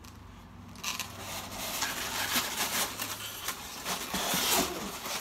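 Hands rummaging through styrofoam packing in a cardboard box: a dense rustling and crinkling with small clicks and knocks, starting about a second in.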